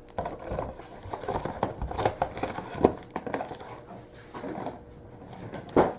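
Sealed trading-card packs being handled and counted out, with a crinkling of wrappers and many irregular light taps and clicks.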